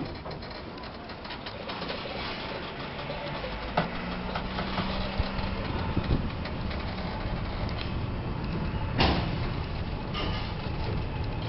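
Steam tram train moving off slowly: the running noise builds gradually, with a few sharp knocks, the loudest about nine seconds in.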